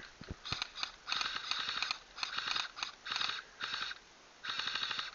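Airsoft electric rifle firing on full auto in six short bursts, each about half a second to a second long, with brief pauses between them.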